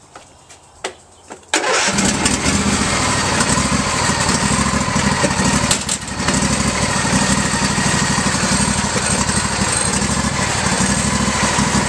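Ariens riding mower's Briggs & Stratton V-twin engine starting about a second and a half in, after a few faint clicks, then running steadily with a brief dip near the middle. It is being restarted after an oil and filter change to check for leaks.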